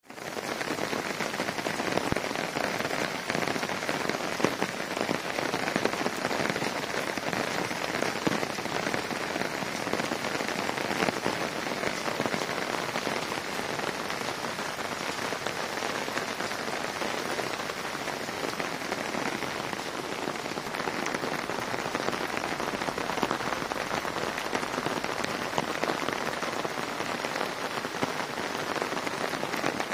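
Steady rain falling on apple-tree leaves and wet ground: a dense, even patter of countless small drops.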